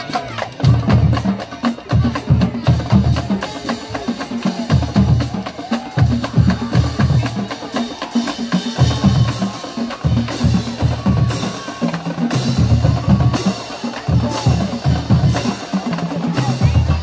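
A marching drumline playing a driving rhythm together: bass drums booming under snare drum hits, with crash cymbals clashing repeatedly, most strongly in the middle stretch.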